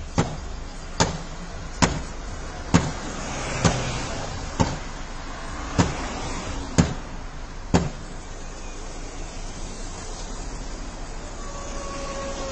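A metal socket wrench hammering down on a Porsche Carrera GT's bonnet: nine sharp bangs about a second apart. They stop about eight seconds in, leaving steady background noise.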